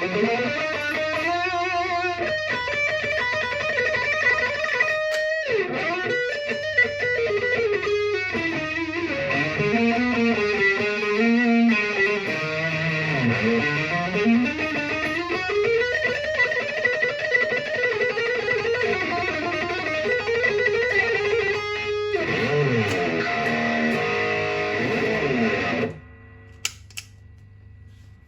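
Electric guitar played through a GBS AFD Distortion Custom pedal, a distortion modelled on a Marshall-amp AFD tone, with the gain near maximum. It plays lead lines with bent and sliding notes. The playing stops suddenly near the end, leaving faint amp hum and a couple of clicks.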